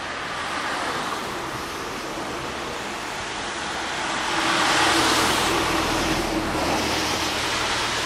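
Road traffic noise: a steady rush that swells about halfway through and eases off near the end.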